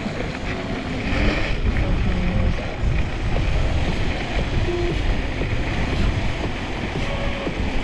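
Wind buffeting an action camera's microphone while riding fast on an electric scooter: a steady, heavy rushing rumble, with a brief brighter hiss about a second in.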